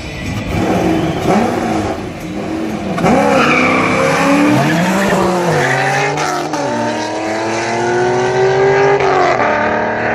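A BMW M3 and a 7-litre V8 Chevrolet Corvette launch in a drag race with tyre squeal. Their engines rev up and down in quick surges at first, then climb steadily through the gears with a gear change near the end as they pull away down the strip.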